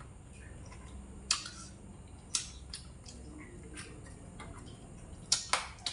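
Close-up eating sounds from chewing fried pork ribs: about five short, sharp mouth clicks and smacks spread out over a few seconds, the loudest two close together near the end.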